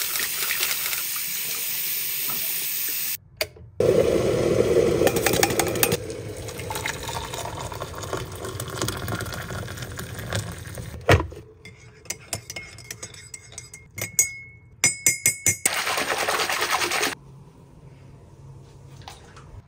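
Water running steadily, broken by abrupt cuts, with a sharp knock about eleven seconds in and a run of light clicks a little after.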